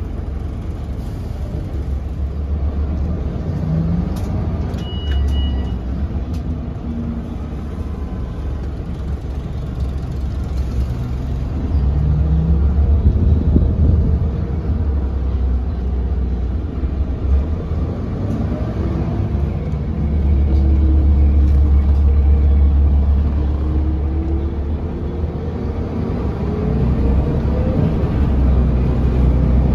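Onboard a 2001 Scania L94UB city bus under way: the rear-mounted nine-litre diesel engine drones low, swelling louder several times and rising and falling in pitch as the bus pulls away and runs up through the gears. A short high beep sounds about five seconds in.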